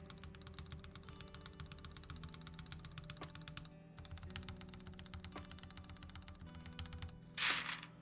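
Rapid typing across lubed, filmed linear mechanical switches (Ultraglides) in a Kaze TKL with a polycarbonate plate, mostly bare switches without keycaps, in two fast runs of presses: a sound test of the freshly installed switches and stabilizers. A short rustling burst near the end is the loudest sound, with background music throughout.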